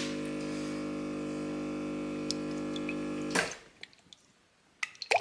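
Espresso machine pump humming steadily while the shot pulls, then shutting off about three and a half seconds in. A few light clicks follow near the end.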